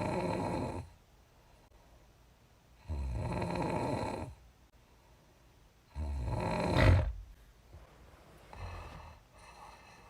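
A woman snoring, her lips puffing with the breath: three snores about three seconds apart, the third ending in a sharp peak, then two fainter, shorter sounds near the end.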